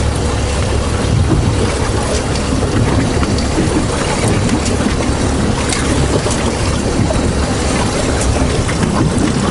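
Strong wind buffeting the microphone, with the wash of choppy water around a small boat.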